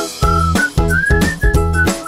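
Background music: a whistled tune over a steady beat and bass.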